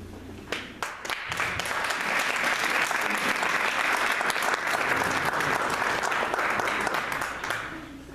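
Applause from an audience and panelists: a few scattered claps, swelling into steady clapping that dies away shortly before the end.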